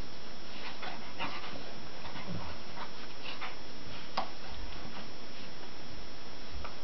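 Great Pyrenees adult and puppy play-wrestling on carpet: scattered short dog vocal noises and scuffling, with a sharp click about four seconds in.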